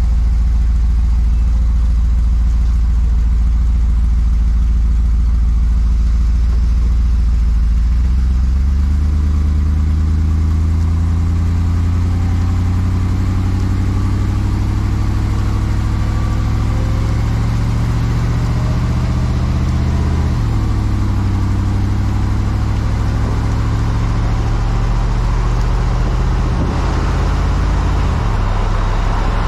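A 2019 Chevy LCF 4500 box truck's engine, heard from beneath the chassis, idling steadily, then rising in pitch as the truck pulls away and accelerates. The pitch drops back twice as the transmission upshifts, and tyre and road noise grows near the end.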